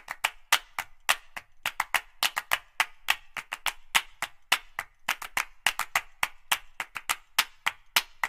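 Background music of sharp handclap-like hits, about four a second in an uneven, syncopated rhythm, with no melody heard.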